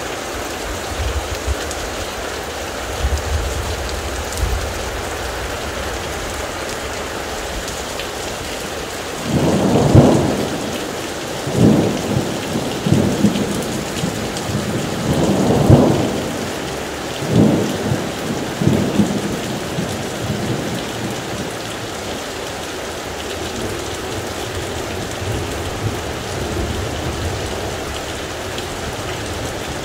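Heavy thunderstorm rain falling steadily, with thunder rolling in about a third of the way through: a run of loud rumbling peals over roughly ten seconds, the first the loudest, before it settles back to rain.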